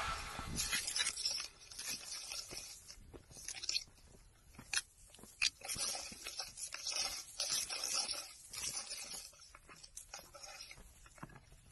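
Irregular rustling and crunching of tall grass and leaves brushing against the camera as it is carried low along a dirt trail, with many short crackles.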